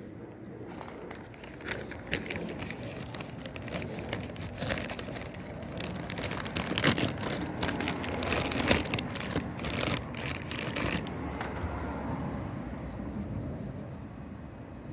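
Hand-handling noise of crinkling, rustling and small clicks as parts are worked by hand, most likely a new rubber seal being pressed into its plastic intake housing. It is busiest in the middle and settles down near the end.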